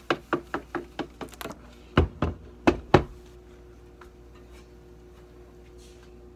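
Handling noise: a quick run of light clicks, about five a second, then four heavier knocks about two seconds in, over a faint steady hum.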